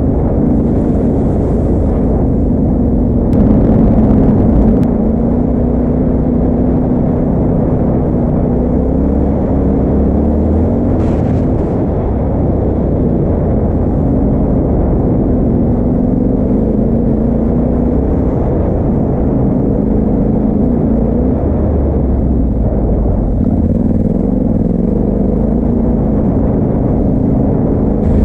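Yamaha Ténéré 700's parallel-twin engine running steadily as the motorcycle climbs a dirt track, its pitch rising and falling with the throttle. A little over three seconds in there is a louder rushing splash lasting about a second, as the bike rides through a shallow ford.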